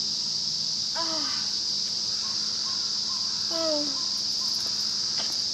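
A steady, high-pitched chorus of insects, with two brief falling calls about a second in and again past halfway.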